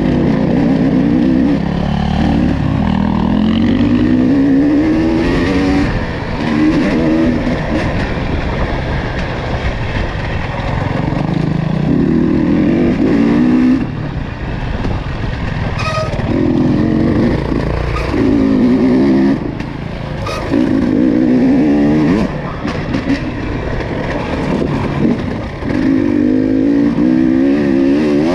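Off-road vehicle engine running under load, repeatedly revving up and easing off in throttle bursts every few seconds. A couple of sharp knocks are heard about halfway through.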